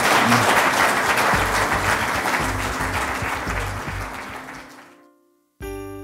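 Audience applauding, the clapping fading away over about five seconds. After a brief silence near the end, a bell-like chime sounds suddenly and rings on, slowly fading.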